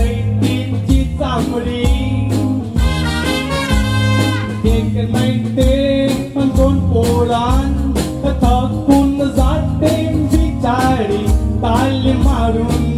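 Live band playing an instrumental passage of an East Indian folk song, with a steady drum beat, a bass line and a lead melody that slides between notes.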